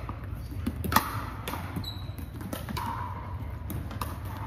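Scattered sharp pops of pickleball paddles hitting balls and balls bouncing on a hardwood floor, the loudest about a second in, ringing in a large gym hall over a steady low hum.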